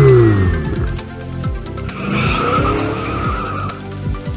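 Electronic music with a steady beat, held tones and repeated short falling swoops. In the first second it carries a pitched sound falling and fading, like a car engine revving down as a sound effect.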